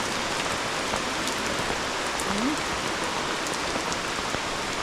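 Steady rain falling in a tropical rainforest: an even hiss with scattered small drop ticks.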